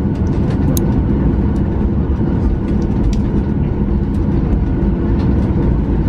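Cabin noise of a jet airliner taxiing: a steady low rumble from the engines and the wheels rolling, with light clicks and rattles throughout.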